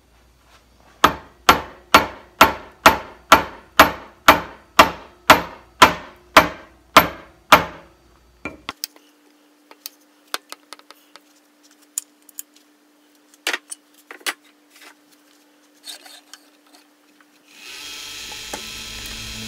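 A hammer tapping about fifteen times, roughly two strikes a second, each with a short metallic ring, as a curved bowl tool rest is knocked into place on a wood lathe. Scattered clicks and knocks follow, then near the end the lathe starts up and runs with a birch bowl blank spinning.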